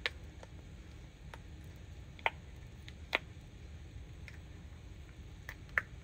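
Cured epoxy-resin light switch covers clicking and tapping together as they are handled: a scatter of short, light clicks at irregular intervals, four of them sharper than the rest.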